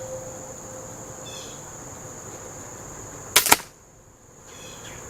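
A single shot from a Benjamin Trail Nitro Piston break-barrel air pistol about three seconds in: a sharp crack with a second crack right on its heels. Crickets chirr steadily in the background.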